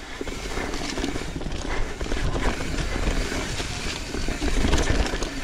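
YT Izzo trail bike ridden fast on a dirt trail: tyre noise and an irregular rattling clatter from the bike, over a low wind rumble on the microphone.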